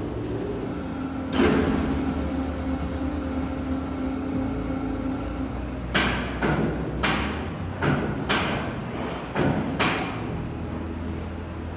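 Steel railway bogies being handled by a workshop overhead crane. A steady crane hum runs through the first half, with one loud metal clank about a second in. From the middle on comes a run of sharp metal clanks and knocks, about two a second, as the lifting chains and the steel bogie knock together while a bogie is lifted off a flatcar.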